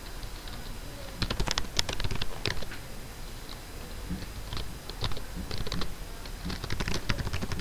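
Computer keyboard keys clicking as someone types in quick bursts, with short pauses between the bursts.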